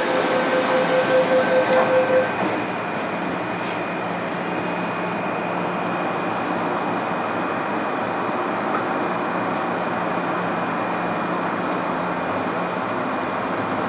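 MTR M-Train on the metro: a row of short beeps with a hiss for the first two seconds, then the train's steady running rumble with a faint high whine.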